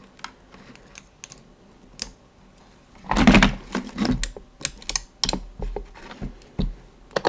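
Rapid clicking of an Intellivision-style joystick controller's buttons and switches being pressed to test them. A few scattered clicks come first, then a dense flurry of clicks starts about three seconds in.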